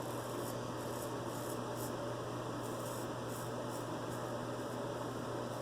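Vintage George Wostenholm straight razor scraping through stubble in short strokes, a few a second, with a brief pause about two seconds in, over a steady low hum.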